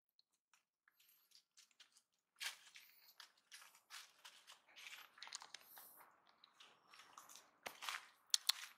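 Quiet, irregular crackling and crunching of dry leaves and plastic litter being disturbed, starting a couple of seconds in, with a few sharper clicks near the end.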